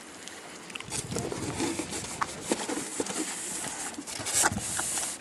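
Handling noise: irregular knocks and clicks of hands on the rotor sail's white plastic cylinder, with a longer rubbing hiss about four and a half seconds in.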